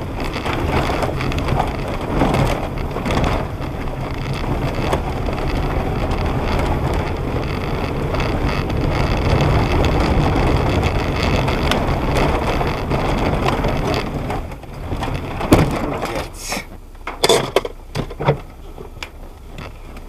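Steady rumbling road noise of a moving vehicle. After about 14 s it drops and a few sharp knocks are heard.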